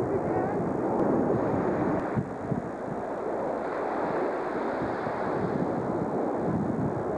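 Steady, distant jet noise from Blue Angels A-4 Skyhawks flying overhead, mixed with wind on the microphone. The noise breaks and changes slightly about two seconds in.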